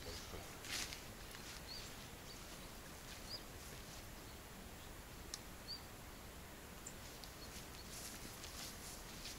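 Quiet outdoor background with a few short, faint bird chirps and a couple of brief light scratches or rustles.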